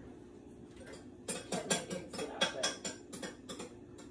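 A fast, uneven run of light clicks and taps from kitchen utensils being handled at the counter. It starts about a second in and stops shortly before the end.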